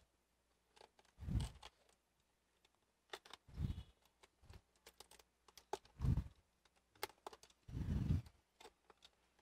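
Hands opening a cardboard shipping box: scattered clicks and rustles, with four dull low thuds about two seconds apart.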